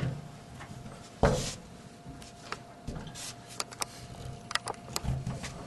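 Tongue-and-groove pliers clicking and scraping on the sheet-metal tabs of a plaster ring as they are squeezed and pushed down against the drywall to tighten the ring, with a louder knock a little over a second in.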